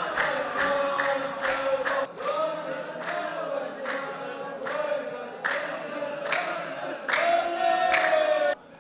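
A line of men chanting the poem's refrain in unison while clapping together in a steady beat, about two claps a second; the chant and clapping stop shortly before the end.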